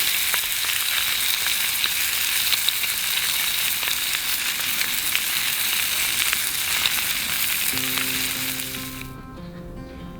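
Food frying in a hot pan, sizzling steadily with frequent small pops and crackles; the sizzle cuts off about nine seconds in. Acoustic guitar music comes in near the end.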